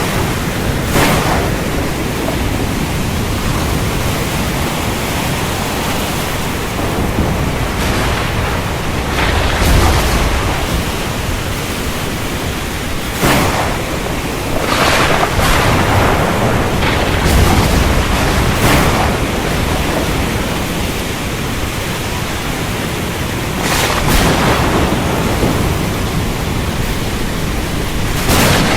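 Thunderstorm: steady heavy rain with low rolling thunder, and sharp cracks of thunder several times, the strongest about 13, 15 to 19 and 24 seconds in.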